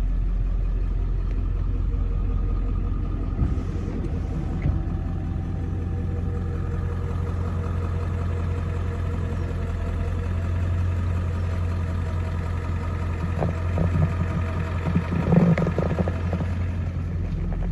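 A 4x4 truck's engine running steadily at low speed, heard from inside the cab as it crawls off-road, with a few knocks early on and a cluster of knocks and rattles near the end.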